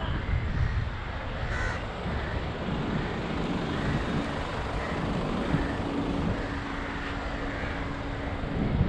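Wind buffeting the camera microphone while cycling, over road traffic noise. A steady low engine hum comes in about four seconds in, and crows caw briefly a few times.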